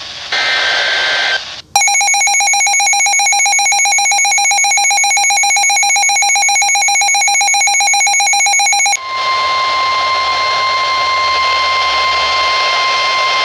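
Emergency Alert System tornado warning tones. First comes a short burst of the data header, then about seven seconds of a rapidly pulsing electronic alarm tone, and from about nine seconds in a steady single-pitch weather radio warning tone.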